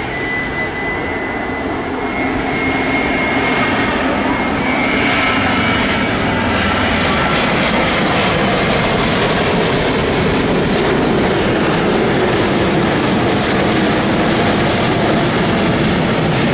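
Jet engines of an Airbus A380 flying low overhead: a loud, dense rumble that grows louder over the first few seconds and then holds steady, with a faint high whine at first.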